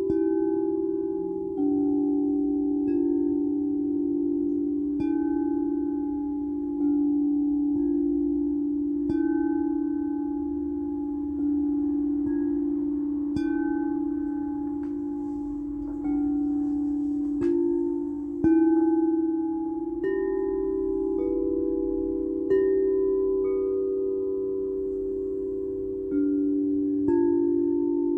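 Singing bowls struck one after another, about every two seconds. Each note rings on and slowly fades under the next, so several low tones overlap, with a few brief high tinkles among them.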